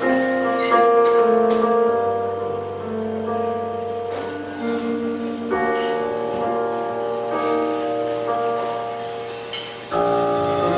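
Instrumental music with no singing: held chords that change every second or two, dipping briefly near the end before a new chord comes in.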